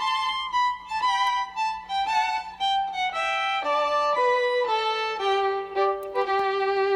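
Background music: a solo violin playing a slow melody that steps downward to a long held low note about five seconds in.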